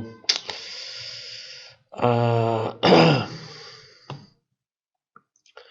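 A man clearing his throat: a breathy rush of air, then a short voiced grunt and a rougher, falling cough-like sound about three seconds in, followed by a faint click.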